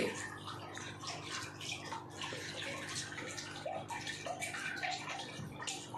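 Water bubbling and churning from a small 7-watt AC submersible aquarium pump as it blows a stream of air bubbles into the tank, with a faint steady hum beneath.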